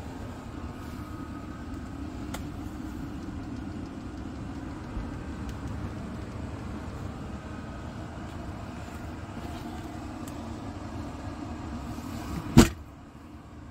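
Scania S580 truck's V8 diesel engine idling, heard from inside the cab as a steady low hum. Near the end there is a single sharp clack, the loudest sound.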